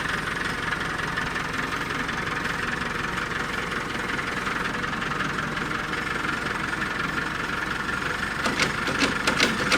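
Tractor engine idling steadily, with a few sharp clicks or knocks near the end.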